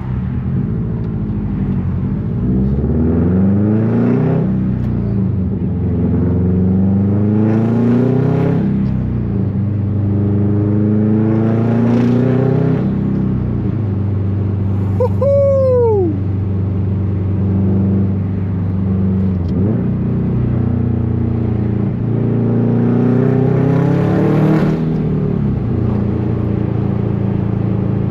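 2005 Subaru STI's turbocharged flat-four running loud through a new Tomei Expreme titanium exhaust with a catless downpipe, heard from inside the car. The engine pulls up in pitch and drops back several times, as with gear shifts. A short falling whistle sounds about halfway through.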